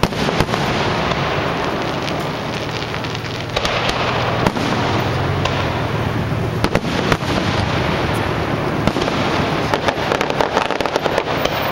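Aerial fireworks shells bursting one after another: sharp bangs over a dense, steady crackle. The bangs come thick and fast near the end.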